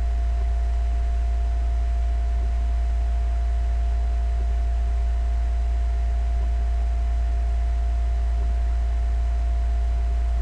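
Steady low electrical hum with an even hiss and a faint thin steady tone above it, unchanging throughout: noise of the recording setup, with no other sound.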